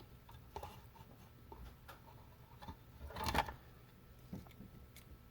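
Faint, scattered light clicks and taps of a soldering iron and tools on a TV tuner's metal RF coax connector during soldering of its centre pin, with one louder brief rustle about three seconds in.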